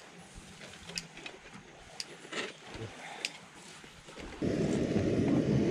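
A few sharp clicks and light metal handling from a portable gas camp stove and its folding aluminium windscreen as the butane canister is fitted. About four seconds in, a loud, steady, low rushing noise starts suddenly.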